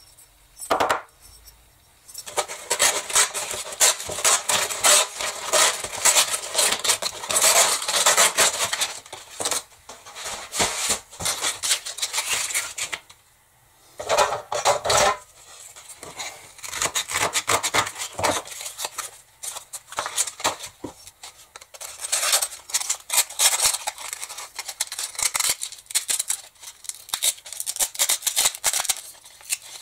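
Close handling noise of a slotted metal tube and a strip of abrasive cloth: scraping, rustling and light metallic clicks in irregular bouts, with a short pause about halfway and a louder burst just after it.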